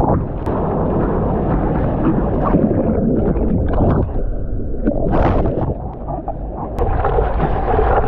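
Surf and churning water close to the microphone, with a heavy low rumble of water and wind buffeting it. The sound dulls briefly about four seconds in, then a short louder splash.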